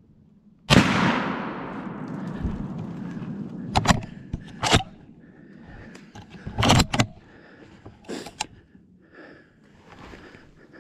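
A single gunshot from a scoped hunting gun about a second in, its report echoing away over a couple of seconds. Several sharp clacks follow as the gun is handled.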